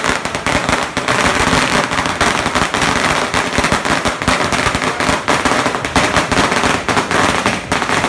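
A long string of firecrackers going off in loud, rapid, continuous bangs.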